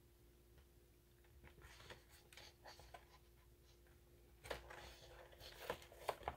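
Faint rustling, scratching and light tapping of paper pages being handled, starting sparse and becoming more frequent and louder after about four and a half seconds.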